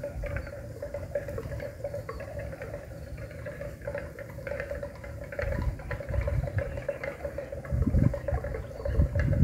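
Water buffalo neck bells jangling irregularly, overlapping clinks over a steady ringing tone, with bursts of low rumble about halfway through and near the end.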